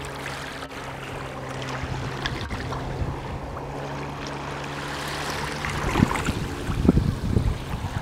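Small waves lapping on a sandy shore of a calm sea, over a steady low engine drone that stops about six seconds in. After that come louder low rumbles of water and wind.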